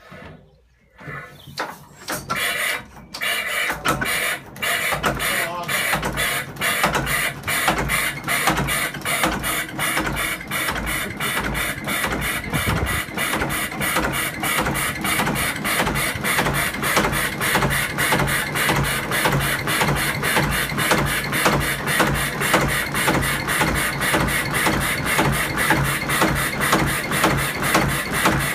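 A 1942 Kelvin K2 two-cylinder 8¼-litre marine engine being cold-started on petrol. It gives a few irregular firings in the first couple of seconds, catches at about four seconds, and then runs on with a steady, even beat.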